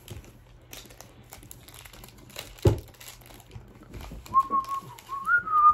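Foil trading-card pack wrappers crinkling and cards being handled, with one sharp knock a little before the middle. Near the end someone whistles a few held notes that step upward in pitch.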